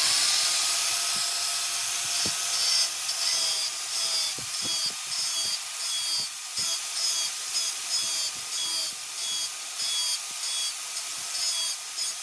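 Angle grinder with an abrasive disc grinding a steel keris blade, starting suddenly with a steady whine and hiss, then pulsing in short repeated passes about twice a second.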